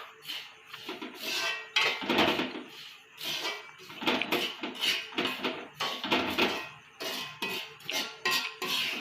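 Metal spatula scraping and stirring in a kadai of roasting semolina, nuts and raisins, in repeated strokes about one or two a second. Background music runs under it.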